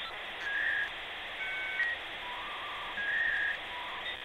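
Electronic intro jingle: a string of short held whistle-like tones at changing pitches over a steady hiss.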